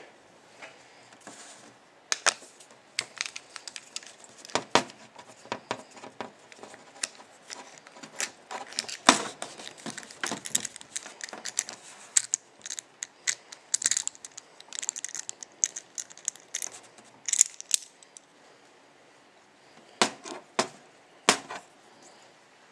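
A Chubb steel padlock being handled just after it has been picked open: irregular metallic clicks and clatters of the lock body and small metal parts, with a pause of a couple of seconds near the end before a few more clicks.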